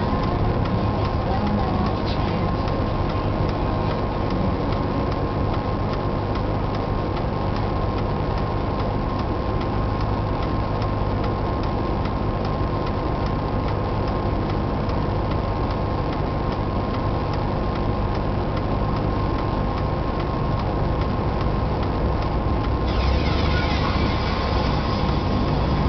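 Car engines running, heard from inside a stationary car's cabin: a steady low idle rumble, with classic cars driving slowly past. Near the end a passing car swells the sound briefly.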